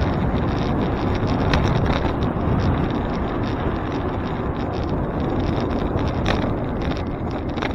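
Wind rushing over the microphone of a camera on a moving bicycle, mixed with road noise, with a few sharp clicks and rattles as the bike rolls over the pavement.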